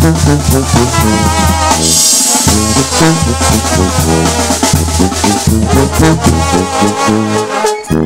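Sinaloan brass band playing live: a brass melody over a tuba bass line, drum kit and bass drum, with a cymbal crash about two seconds in.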